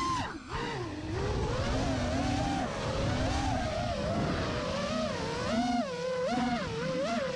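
FPV quadcopter's electric motors whining, their pitch rising and falling constantly as the throttle changes in flight.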